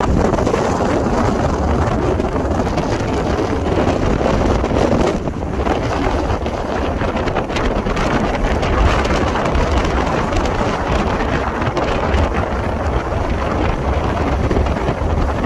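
Strong wind blowing across a phone microphone: a loud, steady rush with heavy low rumble.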